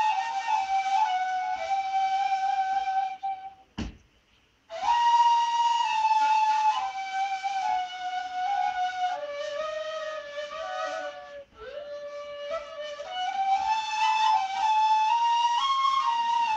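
Two neys, Turkish end-blown reed flutes, playing a peşrev in makam Saba together as one melodic line that moves in steps. About four seconds in the playing stops for about a second, with a single click in the gap, then resumes.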